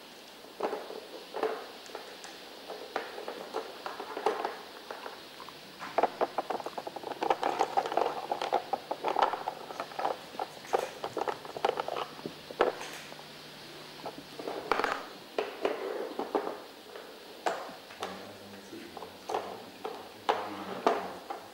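A dog working a plastic puzzle board with its nose, giving irregular clicks, knocks and rattles as the plastic pegs and sliding covers are pushed, lifted and knocked over, thickest in the middle.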